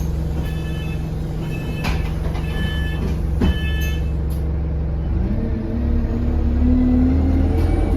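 Enviro200 single-deck bus engine running at a steady low idle, with four short electronic beeps and a couple of clicks in the first half. About five seconds in, the engine note rises as the bus pulls away.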